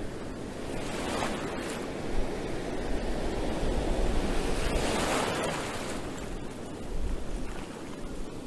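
Surf breaking on a rocky shore: a continuous wash of waves that swells about a second in and again around five seconds in. Wind buffets the microphone in low, gusty rumbles.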